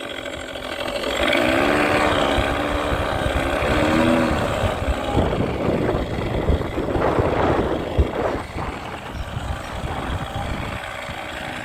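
Wind rumbling over the microphone and road noise while riding an Ola S1 electric scooter, whose motor is barely heard. A brief wavering tone sounds over it in the first few seconds.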